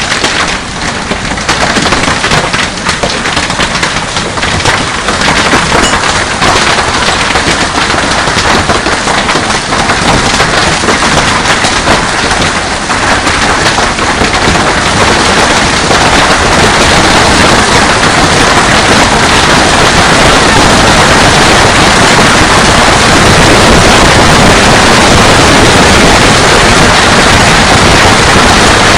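Heavy hail pelting down, a dense, rapid clatter of hailstones striking hard surfaces. It builds over the first fifteen seconds or so, then holds steady and loud.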